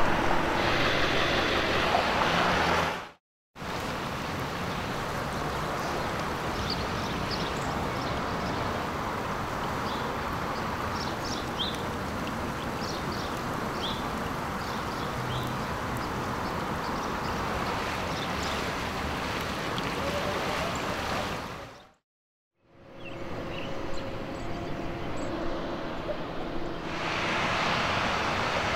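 Steady outdoor noise of flowing floodwater and wind, in three takes split by two brief drops to silence. In the last few seconds, cars pass on a wet road running with floodwater.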